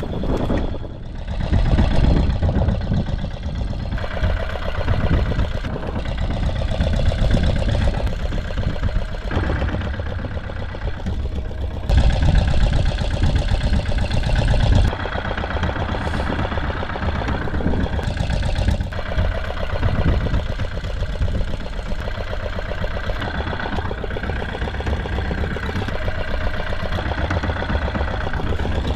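Fishing boat's engine running steadily at low revs, a constant low-pitched drone.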